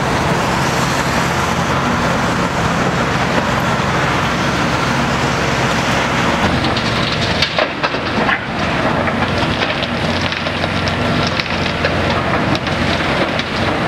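Hitachi ZX870 LCH excavator's diesel engine running steadily under load. From about halfway through, stones and rubble clatter and rattle as the bucket spills its load into a tipper truck's steel bed.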